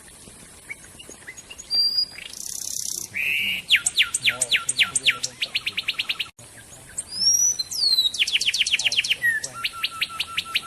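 A songbird sings fast runs of sharp notes that sweep downward, several a second, in two runs with a short break between them. A few whistled gliding notes come before each run.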